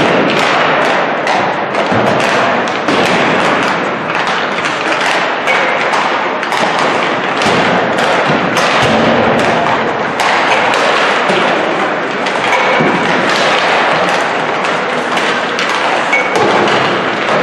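Busy ice hockey rink din: a steady stream of thuds and knocks with music mixed in.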